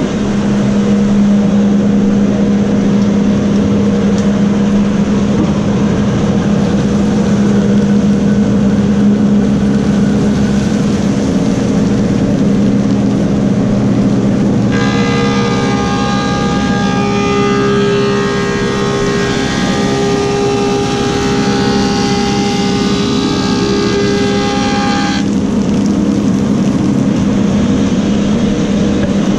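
Woodmaster 725 planer with a helical cutterhead running with a steady hum. About fifteen seconds in, a black cherry slab feeds through the head and the cut adds a high, many-toned whine for about ten seconds. The whine stops when the board clears the cutterhead and the planer runs on idle.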